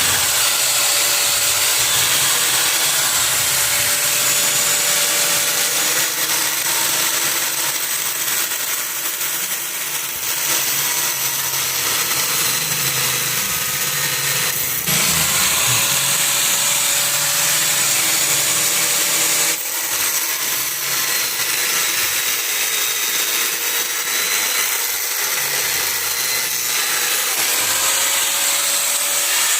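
Electric power tool running under load, cutting into a lead-acid battery's plastic case to open a cell, its motor pitch wavering as it bites; the sound shifts abruptly about halfway and again about two-thirds in.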